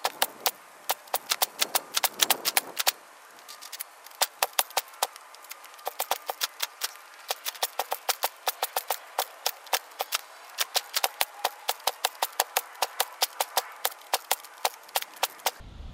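Spark plug of a 200cc Lifan engine snapping as the engine is turned over for a spark check: a sharp click about four times a second, steady throughout. It is getting spark.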